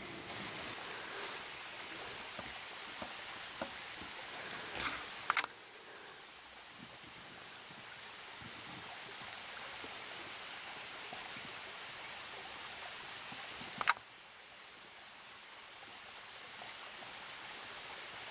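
Night-time outdoor ambience dominated by a steady high-pitched insect chorus over a faint background hiss, broken by two brief clicks where the recording is cut.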